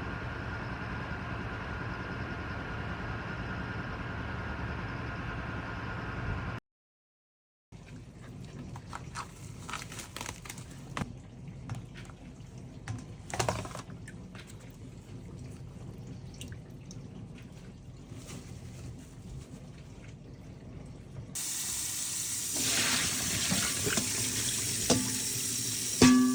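Kitchen tap running into a sink from about three quarters of the way in, as a steady hiss of water. Before that, a steady hum, then a brief cut to silence, then light clicks and knocks of utensils being handled.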